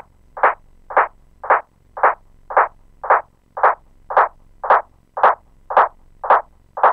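Echo repeats from an Akai MPC's Delay Analog Sync plugin with the feedback turned right up towards self-oscillation: one short mid-pitched hit repeating about twice a second at an even level, not dying away.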